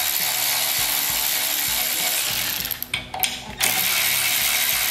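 Milwaukee cordless ratchet with a 1/4-inch socket running, backing out quarter-inch hex-head screws. The motor whirs steadily, stops for a moment about three seconds in, then runs again.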